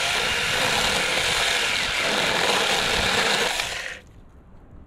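21-volt cordless electric mini chainsaw running steadily as its chain cuts through a small tree branch, then stopping abruptly about four seconds in.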